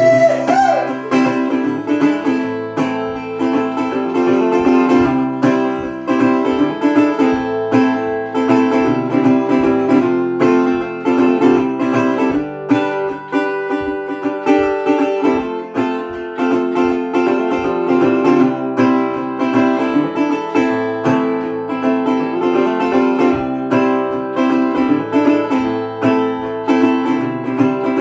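Old National resonator guitar playing an instrumental passage: a steady, continuous run of plucked notes.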